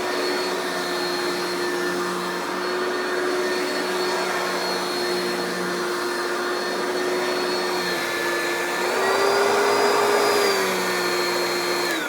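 Oreck XL2 Ultra lightweight upright vacuum running with a steady motor whine. About three-quarters of the way through, its pitch rises and it grows louder for a second or so, then settles back. At the very end it is switched off, and the motor pitch starts falling as it spins down.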